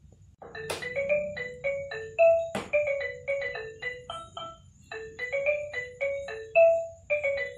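A xylophone-style electronic melody of short, ringing notes at about four a second, with a brief pause in the tune near the middle and one sharp click about two and a half seconds in.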